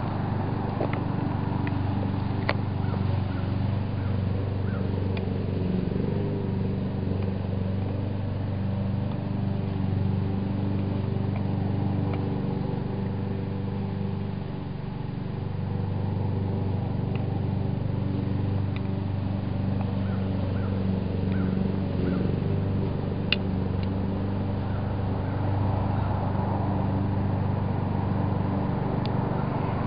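An engine runs steadily with a low, even hum, easing off briefly about halfway through. A few sharp metallic clicks come from an adjustable wrench being worked on the mailbox post's height adjustment bolt.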